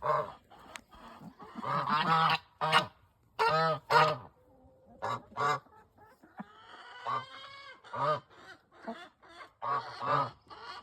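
Egg-laying hens calling: a string of short, loud, honking calls with pauses between them, and a quieter drawn-out call with gliding pitch about seven seconds in.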